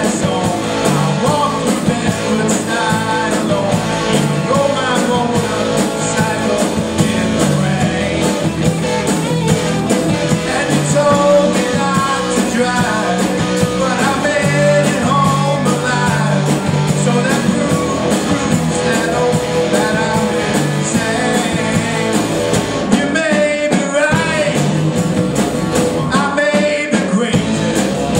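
A rock band playing a rock song, with a bending melodic line over a steady low bass pattern.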